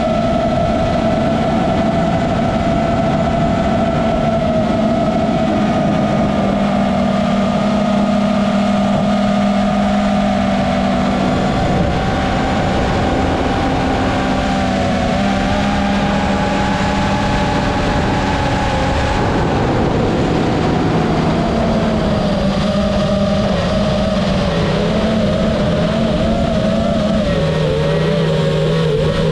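FPV racing quadcopter's motors and propellers whining steadily in flight, heard from the drone itself, the pitch drifting and wobbling as the throttle changes.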